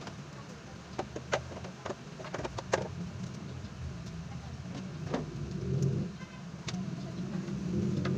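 A low, steady engine-like rumble, with a quick series of sharp clicks and knocks between about one and three seconds in and two more later on.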